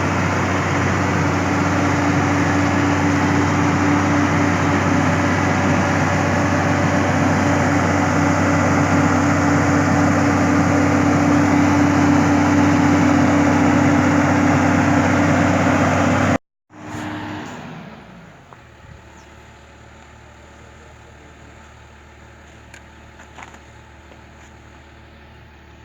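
Hitachi excavator's diesel engine running loud and steady. About two-thirds of the way through it cuts off suddenly, leaving a much quieter steady hum with a few faint clicks.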